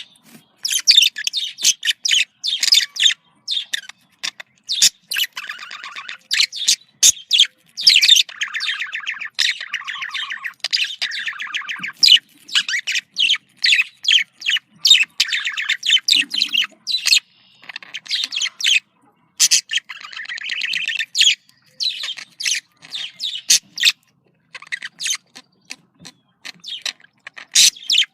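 Budgerigars chattering and warbling: rapid, continuous chirps and trills with brief pauses.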